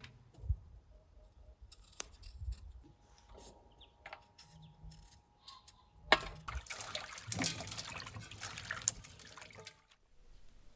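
Raw potatoes knocked about as they are picked from a crate, then a small knife peeling a raw potato: a run of wet scraping, cutting strokes, loudest in the second half and cutting off abruptly near the end.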